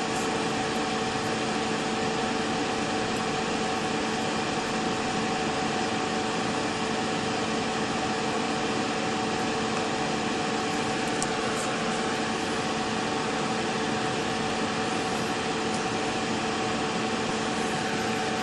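A steady machine hum: an even hiss with a few fixed low and mid tones that do not change.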